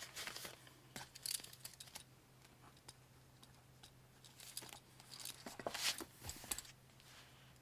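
Soft rustling and crinkling of paper banknotes and clear plastic binder pockets being handled, with small clicks. Near the middle a spiral-bound planner's pages are lifted and flipped, making a busier patch of paper rustling, over a faint steady low hum.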